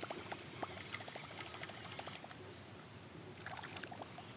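Faint, scattered little water ticks and drips, small splashes on calm water, coming irregularly and bunching a little near the end.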